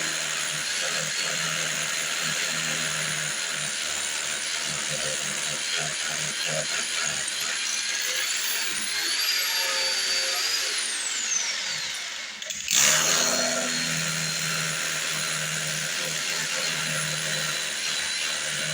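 Electric power tool running steadily at high speed as it works into the wall or floor to expose a hidden leak, with a high motor whine over grinding noise. About eleven seconds in its pitch slides down, it stops for a moment and then starts up again.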